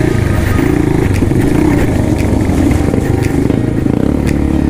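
Dirt bike engine running on a trail ride, its revs rising and falling with the throttle, with a few sharp knocks from the bike over rough ground.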